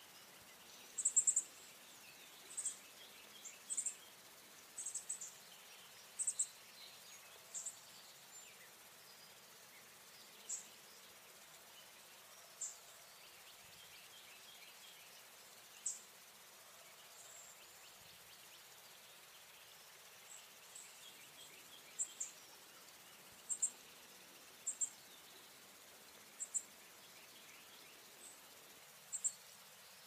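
Northern cardinal fledgling giving short, high-pitched calls, singly or in quick pairs every second or two, with a pause of several seconds midway.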